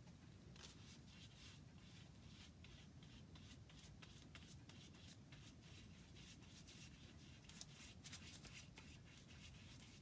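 Faint, irregular scratchy ticks of a glue brush stroking animal glue over thin pear wood veneer.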